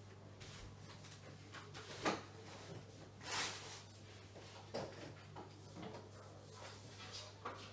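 Faint knocks, clunks and a sliding scrape of someone rummaging through stored things to find a keyboard, with the loudest knock about two seconds in and a longer slide shortly after. A steady low hum runs underneath.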